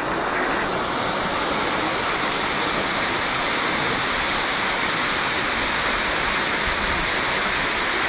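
Ornamental fountain's tall water jets falling back into the basin: a steady, even rush of splashing water.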